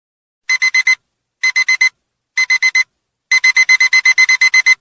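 Digital alarm-clock beeper going off as the countdown reaches zero: three quick groups of four high beeps, about a second apart, then a fast unbroken run of beeps from about three seconds in.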